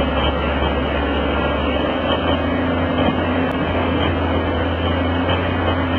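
A large engine running steadily with a constant low drone.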